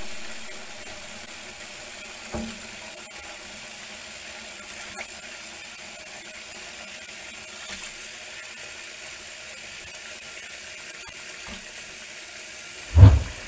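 Tap water running steadily into a stainless steel sink, splashing over raw quail being rinsed. A single short, loud thump near the end.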